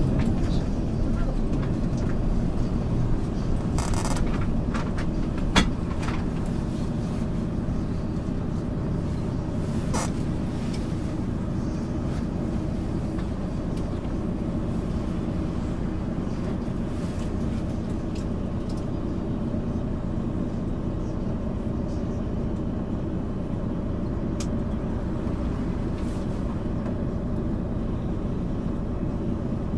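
MAN ÜL 353 bus engine running steadily as the bus drives along, with a few short clicks and rattles in the first ten seconds.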